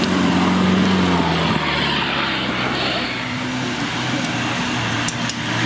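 Land Rover Defender's engine working under load as it climbs over rough dirt, its wheels churning loose soil. The engine note shifts and eases about a second and a half in, and a few sharp clicks come near the end.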